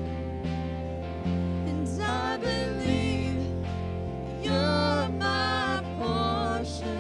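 Live worship band playing a slow song: a woman sings lead in phrases over sustained low bass notes, keyboard, electric guitar and drums.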